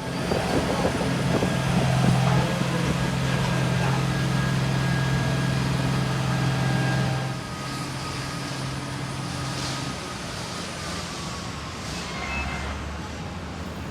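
Airbus A330 jet engines and airflow heard inside the cabin after landing: a steady low hum that drops away about seven seconds in, leaving a quieter rush with a slowly falling whine near the end.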